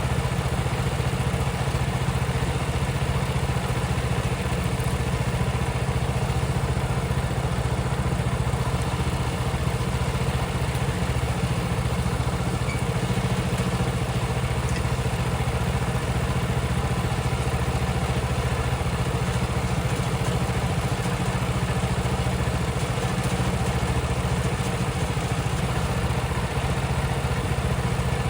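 The gas engine of a Woodland Mills HM126 band sawmill running steadily, together with the diesel engine of a John Deere 3039R compact tractor running alongside. The drone is even and unchanging, with no revving or pauses.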